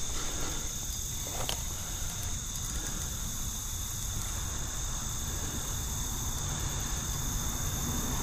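A chorus of crickets and other night insects keeps up a steady high-pitched trill, over a low rumble.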